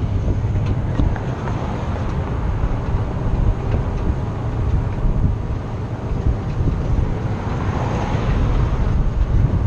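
Wind rumble buffeting the microphone over the steady road noise of riding along a paved road on a jet ski towed on its trailer.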